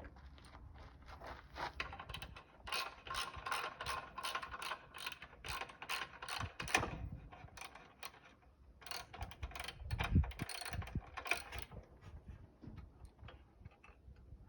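Star-bit (Torx) screws being backed out of a chop saw's blade guard with a hand ratcheting driver: runs of rapid ratchet clicking, with a low thump about ten seconds in.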